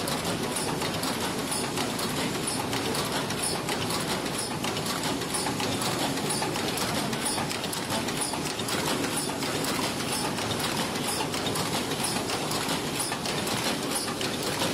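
Automatic paper cup forming machine running, a steady mechanical clatter with a sharp high tick repeating about once a second as it cycles.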